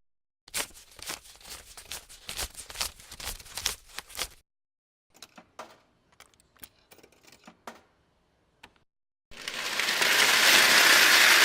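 Paper banknotes being handled: dense crinkling and flicking for about four seconds, then sparser, scattered clicks. About nine seconds in, a loud steady rush of loose coins pouring starts.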